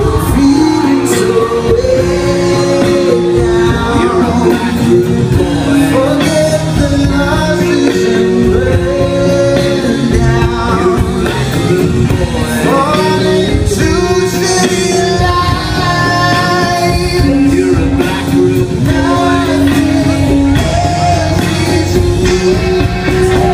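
A live acoustic band plays a melodic passage with no sung lyrics: acoustic guitar, drums and other instruments, recorded from the audience.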